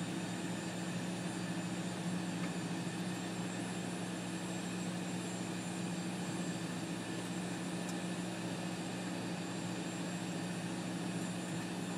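Jet engines running at taxi idle, heard from inside the cockpit: a steady hum under an even hiss that does not change.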